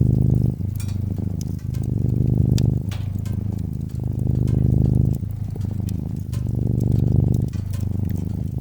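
Domestic cat purring close up, a low rumble that swells and eases with each breath about every two seconds, with fireplace crackles ticking sharply over it.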